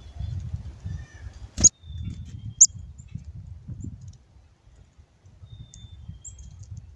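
Short, high, thin chips from a black-capped chickadee perched on a hand of seed, over an irregular low rumble on the microphone. A sharp click comes about a second and a half in, and a bright high chip about a second after it.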